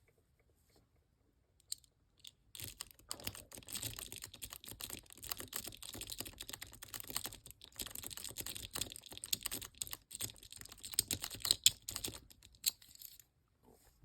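Rake pick being scrubbed rapidly in and out of the 4-pin cylinder of an 80 mm laminated Master Lock padlock, giving fast, irregular metallic clicking and scratching as it works the pin stacks. The raking starts a couple of seconds in and dies away near the end.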